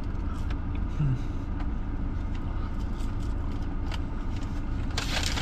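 Steady low hum of a car idling, heard from inside the cabin. About a second in, a man makes a short falling 'mm' while eating, and near the end a rush of hissing noise sets in.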